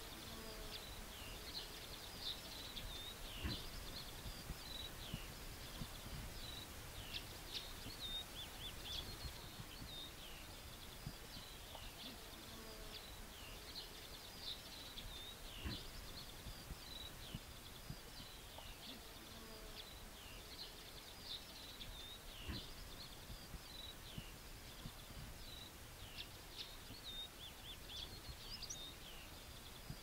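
Faint songbird chorus: many short, high chirps and trills that keep going without a break, over a low wind rumble with a few soft low knocks.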